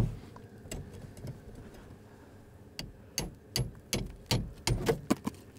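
Hammer blows knocking packed ice out of a Sherp all-terrain vehicle's wheel arch, metal striking against ice and the fender bracket. A loud knock, a few sparse ones, then a quicker run of about a dozen blows in the second half, some with a short metallic ring. The ice is being cleared because, frozen in the arch, it made a low drone while driving.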